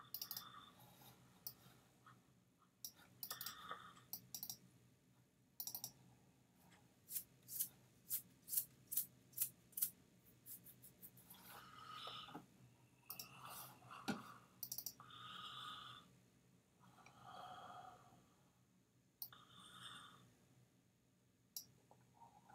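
Faint computer mouse clicks: scattered single clicks, with a quicker run of evenly spaced clicks in the middle.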